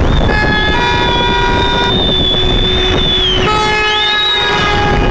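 Several car horns honking at once, with overlapping steady tones that start and stop at different times, over the low rumble of moving traffic. A long high-pitched tone is held for about three seconds, then sounds again briefly about four seconds in.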